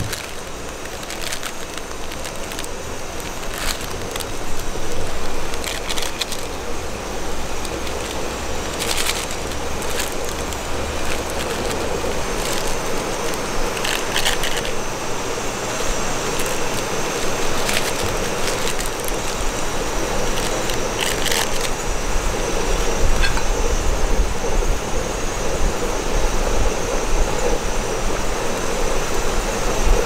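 Heavy rain falling steadily, an even rushing hiss, with a few sharp metallic clicks and clinks now and then from metal tongs against a stainless steel pot.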